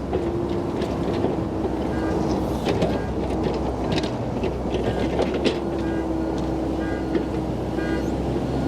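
Komatsu PC88 excavator working: its diesel engine running steadily under a whine that comes and goes, with scattered metal knocks and short high squeals.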